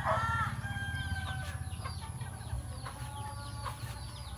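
Chickens at a coop: a loud call with wavering pitch at the start, then clucking and many short, high chirps through the rest, over a steady low hum.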